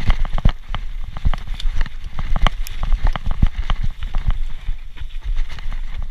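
Specialized Turbo Levo electric mountain bike riding fast down a rough dirt trail: irregular knocks and rattles as it hits bumps and roots, over a steady low rumble of tyres and wind on the microphone.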